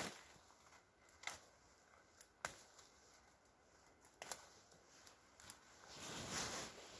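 Jacket fabric rustling close to the microphone near the end, after a few isolated sharp clicks earlier on.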